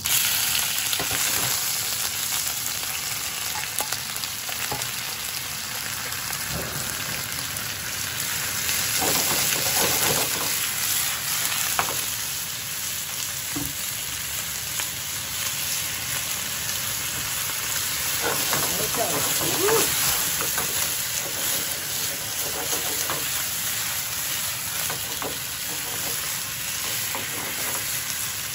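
Beef and thick-cut Japanese long onions (negi) sizzling steadily as they stir-fry in a nonstick frying pan, turned with a spatula and chopsticks, with now and then a light scrape of the utensils against the pan.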